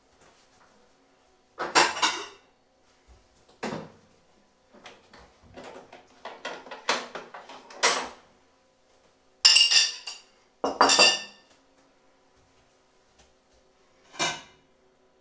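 Crockery, cutlery and a steel pot lid clinking and clattering in separate bursts: a cluster about two seconds in, a run of smaller clinks in the middle, two loud clatters just past the middle, and a last one near the end. A faint steady hum runs underneath.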